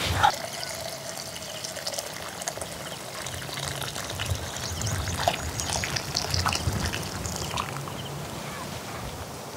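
Water poured from a kettle into an earthenware clay pot, a steady trickling splash into the water already in the pot. There is a short metallic knock right at the start.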